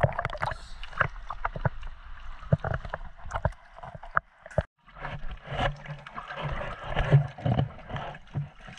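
Seawater sloshing and splashing around a camera held at the surface, with many sharp little slaps and crackles of chop against it. There is a brief gap about halfway.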